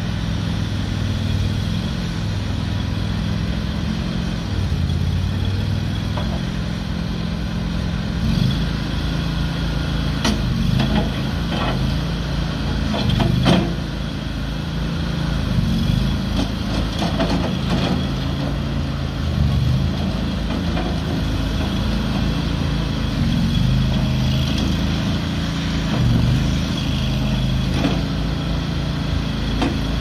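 Morbark Boxer 320 mini skid steer loader's engine running, its pitch stepping up and down as the bucket is lowered and the machine drives on its tracks, with a few sharp clanks about a third of the way through.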